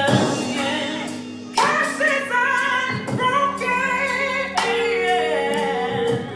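Gospel song with a woman singing over the accompaniment; in the second half she holds one long note.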